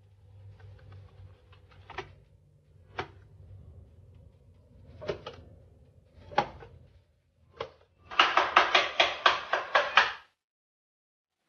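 A few scattered single knocks and taps, then about two seconds of rapid, regular clattering strokes, about six a second, near the end: a whisk beating against a frying pan.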